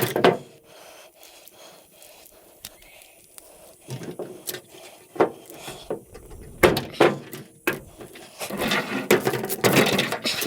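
Scattered clicks, knocks and scraping of aluminum-armoured cable being worked by hand, bent apart and cut to free the wire inside. A loud knock comes at the start, then a quiet stretch, then busier clicking and rubbing from about four seconds in.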